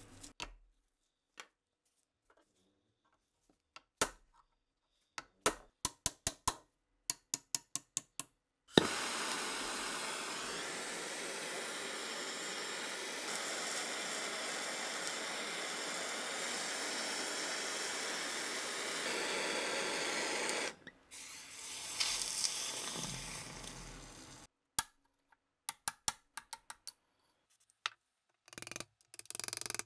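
Aerosol spray can spraying in one long hiss of about twelve seconds, starting and stopping abruptly, with scattered sharp metal clicks and taps before and after it.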